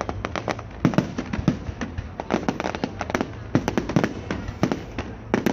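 Fireworks going off: a rapid, irregular string of sharp bangs and crackles, several a second.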